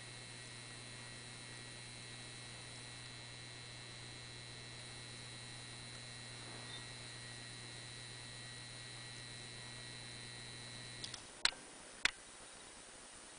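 Core-and-coil ballast of a 250 W mercury vapour lamp humming steadily, with a faint high buzz, while the lamp burns at full brightness. About eleven seconds in the hum cuts off suddenly as the lamp goes dark, followed by two sharp clicks.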